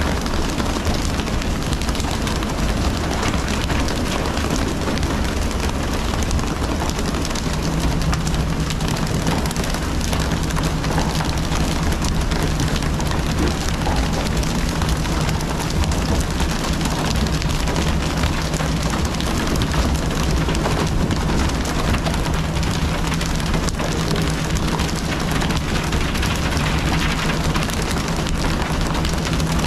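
Steady rush of wind and water splashing along a fishing boat's hull, with the boat's engine giving a low, even hum underneath.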